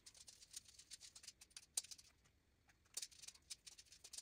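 Faint, irregular small clicks and ticks of a hand screwdriver and loose metal hardware as screws are tightened into nylock nuts on a VEX wheel and gear, with a short lull about two seconds in.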